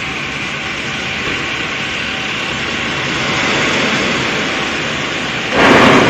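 A large flock of starlings makes a dense, steady rushing noise of massed calls and wings. About five and a half seconds in, a sudden loud burst comes as the whole flock plunges to the ground at once.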